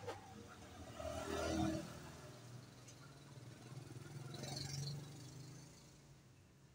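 A motor vehicle engine running, swelling in level about a second and a half in and again a few seconds later, over a low steady hum.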